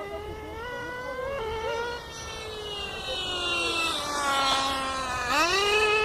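Small nitro engines of radio-controlled cars running at high revs, a high buzzing whine whose pitch rises and falls with the throttle, with more than one engine heard at times. Near the end the pitch drops sharply and then climbs quickly, louder.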